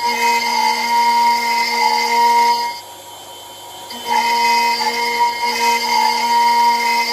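CNC router milling a metal air-rifle part with a small end mill, giving a steady high-pitched cutting whine made of several tones. The cutting sound stops about three seconds in and starts again about a second later.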